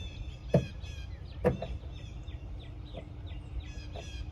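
Small birds chirping steadily, a dense run of short, quick chirps. Two sharp knocks about a second apart near the start are the loudest sounds.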